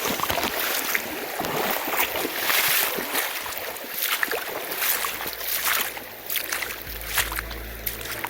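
Water splashing and sloshing as feet wade through a shallow, icy stream, over the rush of the flowing water. A low steady rumble comes in about five seconds in.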